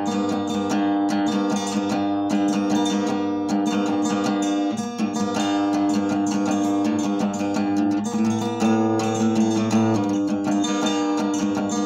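Acoustic guitar played with quick, repeated picked or strummed notes over a ringing low note. The chord shifts briefly about five seconds in, and a different chord holds from about eight to ten seconds before the first returns.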